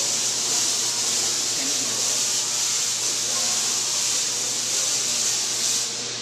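Tesla coil firing its lightning-bolt sparks: a loud, steady hiss, strongest in the highs, that cuts off just before the end.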